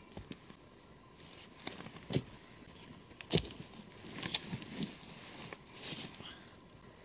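Irregular rustling and soft knocks of clothing, combat boots and dry leaves as a boot is pulled on and laced up. The sharpest knock comes about halfway through, with a busier patch of rustles just after.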